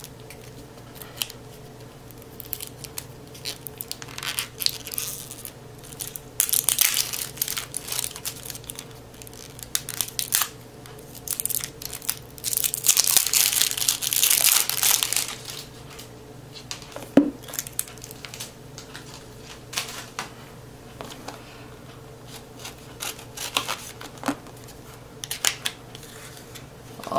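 Cellophane wrap being torn off a deck of playing cards and the plastic crinkled, with the card box handled. The tearing and crinkling comes in intermittent bursts, the longest about halfway through, with a small knock a few seconds later.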